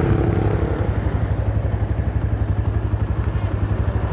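Motorcycle engine idling at a standstill, a steady, even pulsing beat that holds level without revving.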